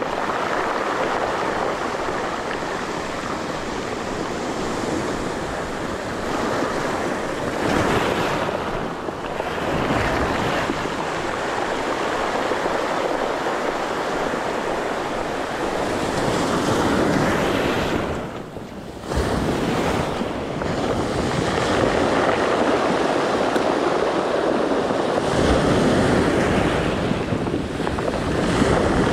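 Sea surf breaking and washing up over a pebble and cobble shore in a steady wash of noise, with wind on the microphone. It dips briefly about two-thirds of the way through.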